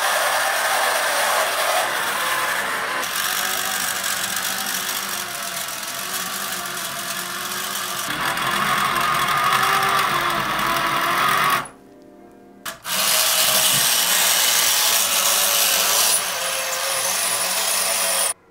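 Small electric motor and gear drive of a 1970s Gama Faun toy dump truck whirring as it drives, its pitch wavering with the load. The sound cuts out for about a second midway, then runs again until it stops abruptly. The recording is harsh and distorted.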